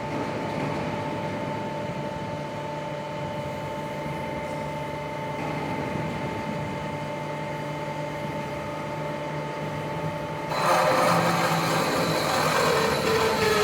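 CNC pipe bending machine running, with a steady motor whine and low hum. About ten and a half seconds in, a louder, rougher metalworking noise joins as the machine works the tube.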